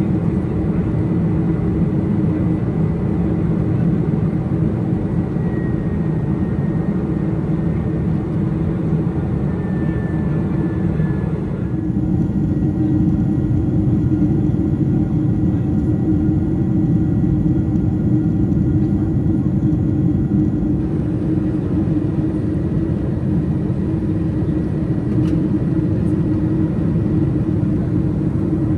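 Steady cabin drone of a Boeing 747-400 in flight: engine and airflow noise heard from inside the cabin, with a few faint steady whining tones within it.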